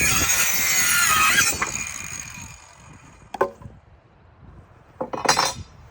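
RYOBI 18V ONE+ 4-1/2-inch cordless circular saw finishing a cut through wood, then spinning down over the next second or so. Two short clattering knocks follow, about three and a half and five seconds in.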